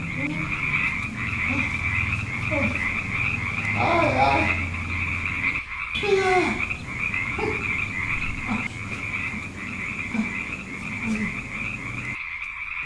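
A chorus of frogs croaking steadily, with lower single croaks now and then.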